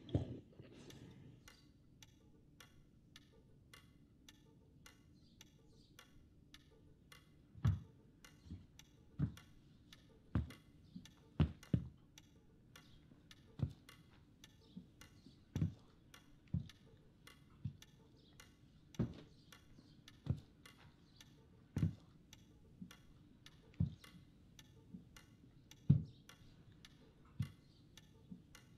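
A clock ticking steadily, joined from about eight seconds in by slow, heavy footsteps of boots on a wooden floor and then up the stairs; the footsteps are the loudest sounds.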